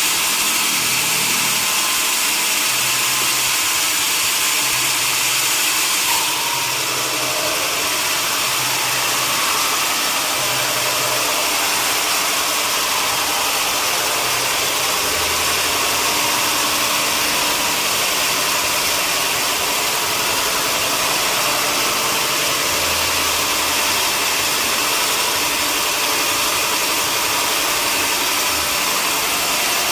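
Sawmill machinery running steadily: a loud, even hiss with an engine-like drone, dipping slightly about six seconds in.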